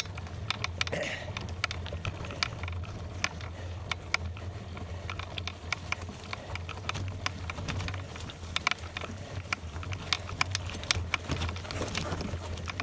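Bicycle tyres rolling over gravel: irregular sharp clicks and ticks of stones over a low, steady rumble.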